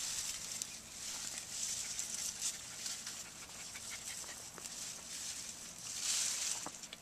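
Cilantro leaves rustling as they are picked by hand, with light clicks of stems being pinched off.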